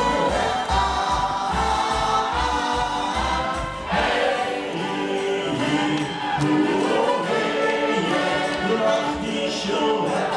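Live German beer-tent band playing: voices singing over trumpet and acoustic guitar, amplified through a PA. A steady low beat runs under the first four seconds, then drops out.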